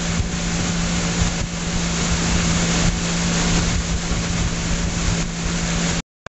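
Motorboat engine running steadily under load while towing an inflatable tube, with rushing wind and water noise from the boat's speed. The sound cuts off suddenly near the end.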